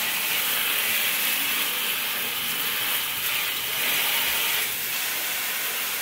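Handheld shower head spraying water into a bathtub: a steady hiss of running water.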